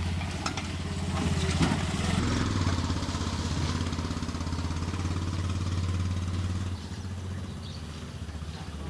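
A small engine running steadily off to one side. It revs up briefly about two seconds in and becomes quieter near the end.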